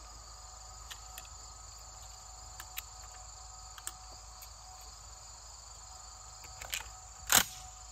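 12-gauge shells being thumbed one at a time into the tube magazine of an Aksa S4 semi-auto shotgun, giving a handful of short clicks with the loudest near the end, over a steady chorus of chirping insects.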